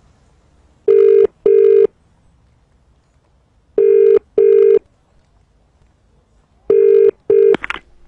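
British telephone ringback tone heard down the line: three double rings about three seconds apart, the last cut short with a click as the call is answered.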